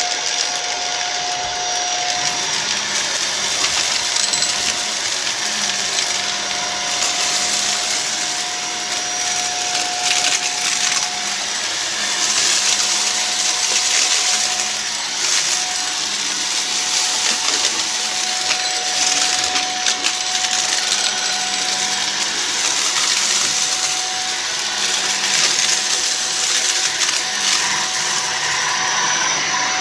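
Shark DuoClean vacuum cleaner running continuously, with a steady whine over its rushing air noise that swells and eases every few seconds as it is pushed back and forth. A few faint clicks come through now and then.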